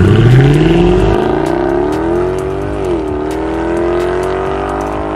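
Mercedes-Benz CLK63 AMG Black Series's 6.2-litre V8 exhaust under hard acceleration as the car pulls away: the engine note rises steeply, drops at an upshift about three seconds in, then climbs again, fading as the car draws away.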